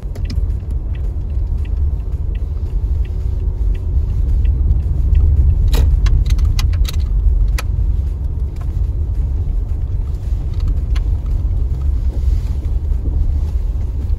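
Car driving slowly over a gravel lot, heard from inside the cabin: a steady low rumble of tyres and engine, with scattered sharp clicks of gravel under the tyres, a cluster of them about halfway through.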